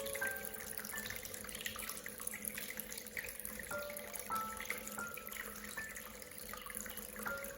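Water from a small waterfall splashing and trickling steadily, with scattered drips. Short, clear ringing tones at different pitches sound every half-second or so.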